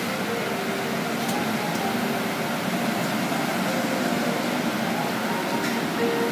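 Steady noise of car wash machinery running, with no separate knocks or clear events.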